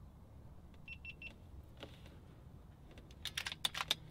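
Three short electronic beeps about a second in, then near the end a quick run of sharp metallic clicks from the FX Impact MKII air rifle's side-lever action being worked to cock it and feed a pellet.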